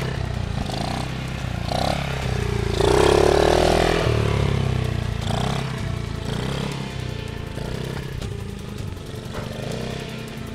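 Small dirt bike engine running and revving up and down several times, the strongest rev about three seconds in, over a steady low drone.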